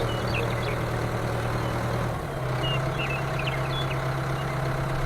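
Tractor engine running steadily at idle, its hum stepping slightly higher about two seconds in, with a few faint bird chirps over it.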